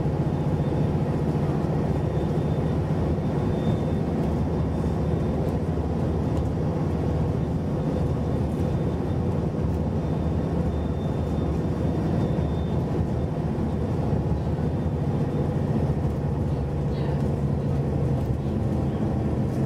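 Scania Enviro 400 double-decker bus running at a steady cruise, heard from inside the passenger saloon: a constant low engine hum under tyre and road noise.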